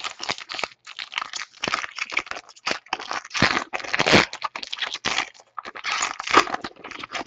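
Foil wrapper of a 2014 Donruss baseball card pack crinkling and tearing as it is pulled open by hand. The crackling is dense and stops just before the end.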